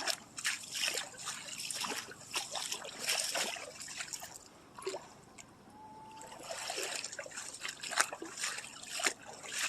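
Water trickling and splashing in irregular small splashes, quieter for a moment about halfway through.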